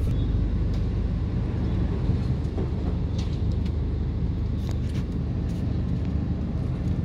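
Steady low rumble inside a car's cabin in storm wind, with a few faint ticks.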